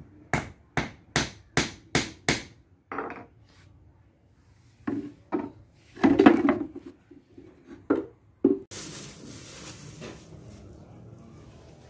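Hand-tool blows on bamboo and wood while a bamboo beehive frame is being built: six quick, evenly spaced knocks at the start, then a few scattered knocks and a louder clatter of bamboo pieces about halfway. A rush of hiss follows near the end.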